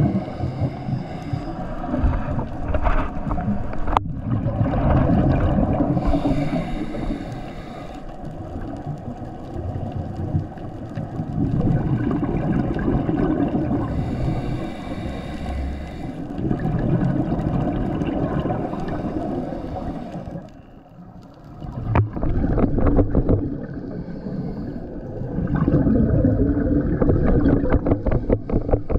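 Scuba regulator breathing heard underwater: rumbling, gurgling exhaust bubbles, with hissing inhalations about 6 and 14 seconds in.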